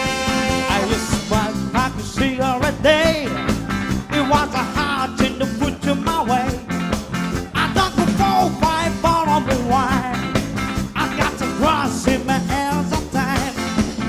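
Live band music: a held horn note ends a moment in, then the band plays an up-tempo ska/rock instrumental passage with a busy lead melody over bass and drums.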